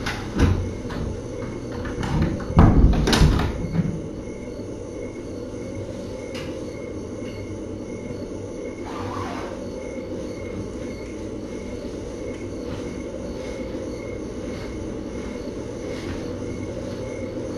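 A few knocks and a clattering, rattling burst in the first four seconds, then a steady low room hum with faint regular ticks.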